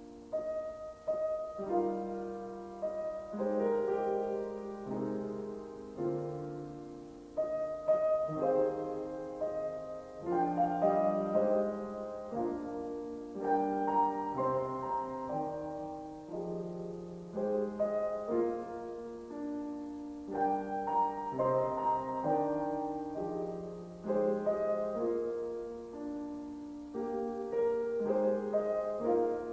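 Piano playing a slow instrumental piece, chords and a melody struck and left to ring, with a new chord every second or two.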